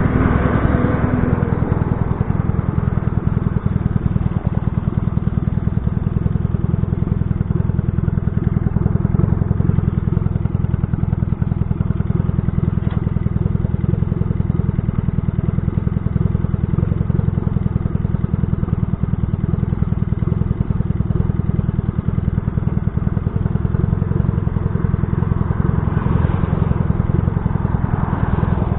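Small air-cooled parallel-twin engine of a 1970 Honda CB175 motorcycle idling steadily at a standstill, heard close from the bike. A car passes in front near the end.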